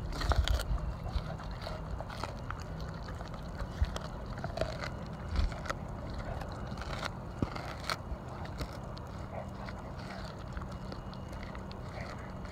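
A Weimaraner–Labrador mix chewing a whole raw mackerel, with scattered wet crunches and clicks of teeth on fish and bone. Under it runs a steady low machine drone from work on a nearby telephone pole.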